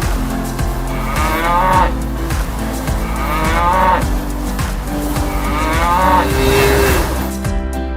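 Cow mooing three times, about two seconds apart, over background music.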